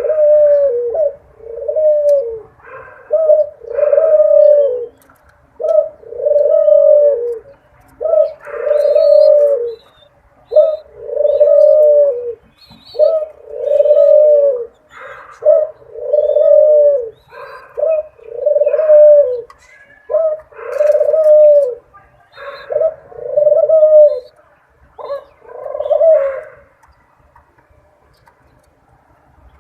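Dove cooing: a long series of low coos, each about a second long with short gaps, that stops a few seconds before the end.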